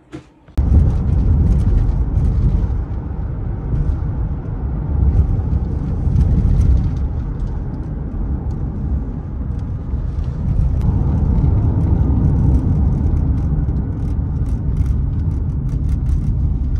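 A car driving, with steady low road and engine rumble heard inside the cabin. It starts abruptly about half a second in.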